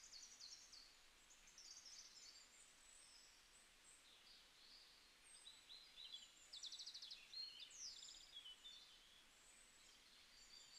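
Near silence with faint, high bird chirps scattered throughout, the clearest a quick trill and a falling call about six and a half to eight seconds in.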